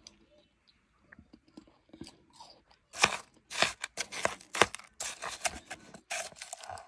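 Someone chewing soft, blender-crushed ice close to the microphone. A few faint clicks come first, then about three seconds of dense, loud crunching that stops abruptly just before the end.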